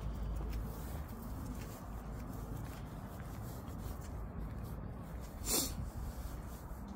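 Steady low rumble of outdoor background noise, with one short breathy hiss about five and a half seconds in.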